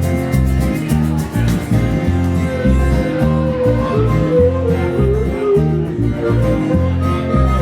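Live blues band playing an instrumental passage: a pulsing bass line and guitar, with cymbals in the first couple of seconds and a lead melody line with wavering, bent notes over the top.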